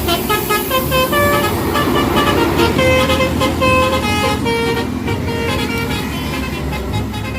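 Bus telolet horn: a set of horns sounding together, playing a quick tune of short notes that change pitch every fraction of a second, over the low rumble of the bus's running engine.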